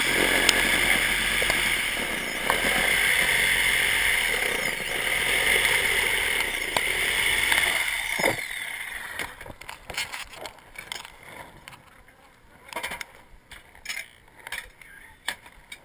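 Milwaukee reciprocating saw running steadily as it cuts through a painted wooden panel, then it stops suddenly about eight seconds in. A few scattered knocks and clicks follow.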